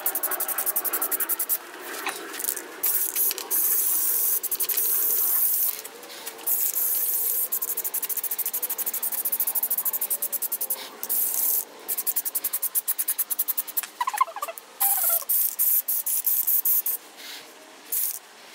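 Aerosol can of truck bed liner spraying in a series of hissing, sputtering bursts that stop and start every second or few seconds.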